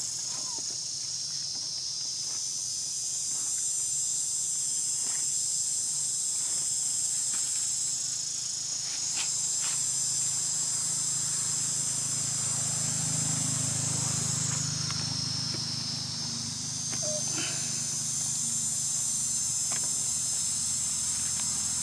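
Chorus of forest insects, a loud steady high-pitched drone that swells and eases in long waves. A low hum builds about halfway through, with a few faint clicks.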